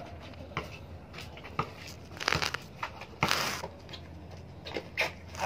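Irregular knocks and scrapes from one-on-one basketball on an outdoor asphalt court: the ball bouncing and shoes scuffing, one longer scrape about three seconds in, over a low steady hum.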